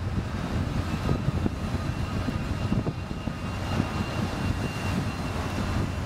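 Ultra Heavy-lift Amphibious Connector (UHAC) tracked amphibious vehicle driving up out of the surf onto the sand: engine running with a steady low rumble, the treads knocking over and over, and a faint steady high whine.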